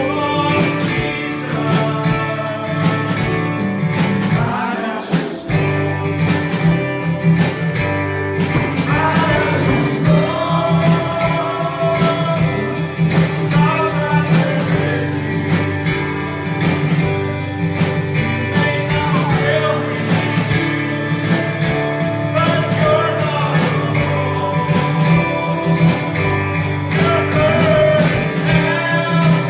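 Live worship music with a steady strumming beat, guitar and a melody line, in a country-rock style.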